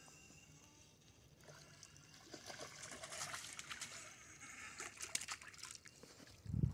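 A hooked crappie splashing at the water's surface as it is reeled toward the bank, with a run of quick splashy clicks. A brief low thump near the end is the loudest sound.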